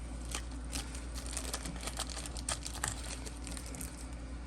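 Scattered light, irregular clicks and rattles of small screws and 3D-printed plastic parts being handled.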